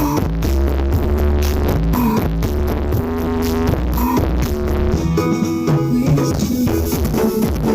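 Electronic dance music with a heavy bass and a drum beat, played loud through the SKPR Audio sound system; the deep bass drops out about five seconds in.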